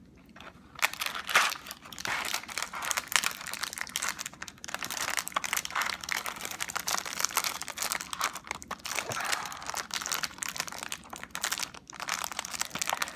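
Pocky snack box and its foil inner wrapper being worked open by hand: continuous crinkling and crackling, starting about a second in.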